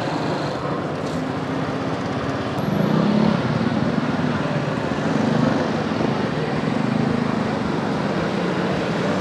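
Busy street traffic: small motor scooter and motorcycle engines idling and running together in a steady rumble that swells louder a few times.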